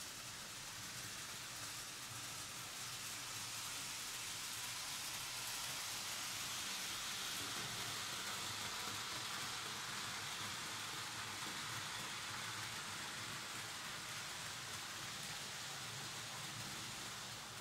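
Märklin H0 model trains rolling on metal M-track: a steady hiss of wheels running over the tinplate rails, swelling around the middle as a BR50 steam locomotive and coach pass close by, then easing off.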